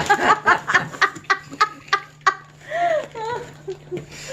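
A person laughing in a rapid run of short, cackling bursts, about four a second, easing off after two seconds into a few drawn-out voiced sounds.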